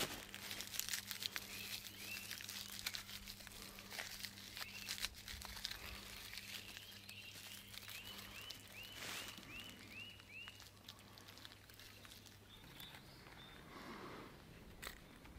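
Faint crinkling and crackling of dry birch bark as it is crumbled and rubbed between the hands, worked together with spruce pitch into fire tinder.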